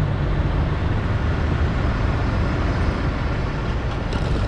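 Steady city street traffic noise with a heavy low hum of vehicle engines, and a few faint clicks near the end.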